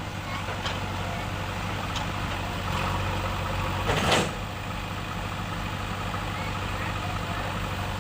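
Diesel engine of heavy earthmoving machinery running steadily, with a short, loud, noisy burst about four seconds in and a few faint clicks.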